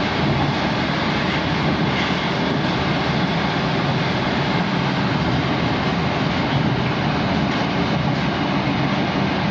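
Moscow Metro "Moskva-2020" train running at speed between stations, heard from inside the car: a steady, loud rumble and rush of wheels on rails.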